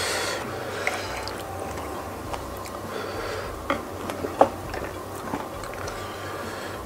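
Wooden spoon clicking and scraping against a ceramic plate while scooping thick chili sauce: a few light, scattered taps, the sharpest about four and a half seconds in.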